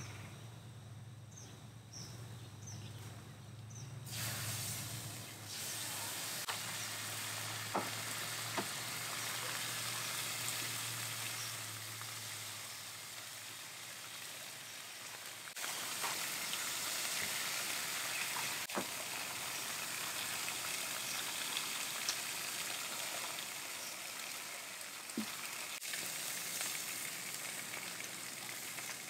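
Bacon sizzling on a hot camp griddle. The frying hiss starts about four seconds in and gets louder again shortly before the middle. A few sharp clicks come from the cooking utensils.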